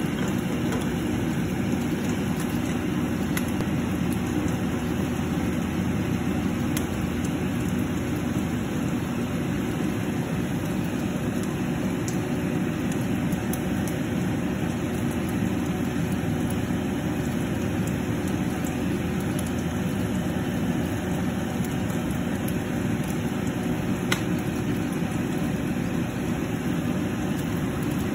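Fish braising in a bubbling sauce in a pan on the stove, heard as a steady low rumble with a few faint ticks.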